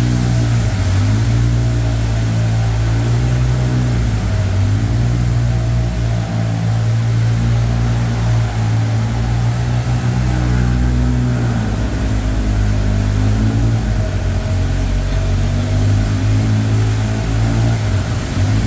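Small tour boat's motor running with a steady low hum, its pitch wavering up and down now and then.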